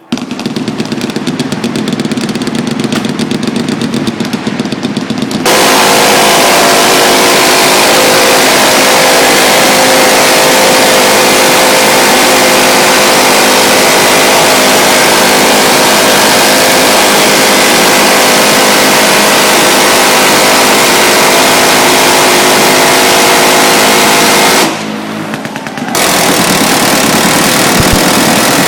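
Sustained machine-gun fire, loud and continuous. For the first few seconds separate rapid shots can be told apart; then the fire becomes so fast that it merges into a steady buzzing drone, with a short break near the end before it resumes.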